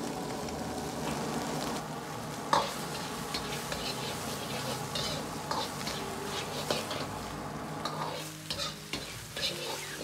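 Pieces of blanched pork intestine sizzling in hot oil in a wok while a metal ladle stirs and scrapes them, frying out their excess water. The loudest scrape of ladle on wok comes about two and a half seconds in. The sizzle eases near the end, leaving separate scrapes.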